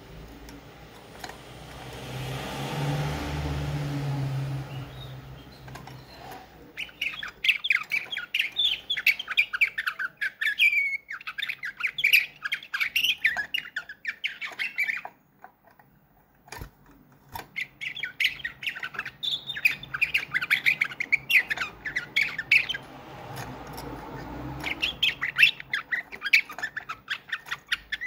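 Slavujar canary singing nightingale-style song: long runs of rapid chirps and trills in three phrases, with short pauses between them. A low rumbling noise swells and fades in the first few seconds, before the singing starts.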